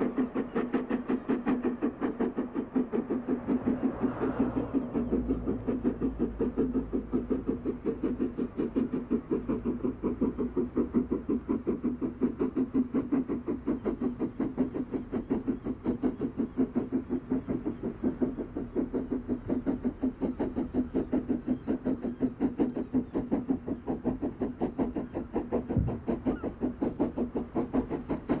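BR Standard Class 4 4-6-0 steam locomotive working hard up a cliffside gradient with an excursion train, its exhaust beating evenly at about four chuffs a second.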